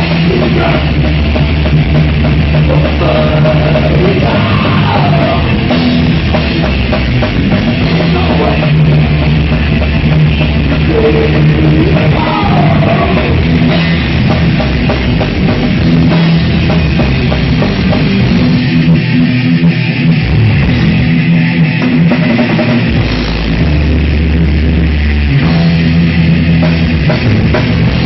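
A live heavy rock trio of electric guitar, bass guitar and drum kit playing loud.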